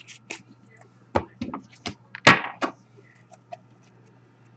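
Hockey-card packs and cards handled on a table: a string of short sharp taps and knocks, the loudest a bit over two seconds in, over a steady low electrical hum.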